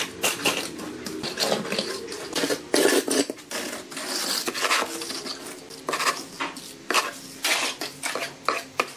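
Hand float scraping and swishing across wet cement screed in irregular strokes, with short sharp scrapes and clinks.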